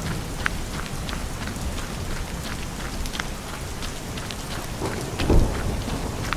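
Steady rain falling, with many separate drops heard as short clicks, and a brief low rumble about five seconds in.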